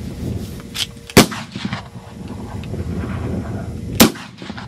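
Two rifle shots from the firing line, about three seconds apart, each sharp crack trailing off in a short echo: sighting rounds fired from prone classic service rifles.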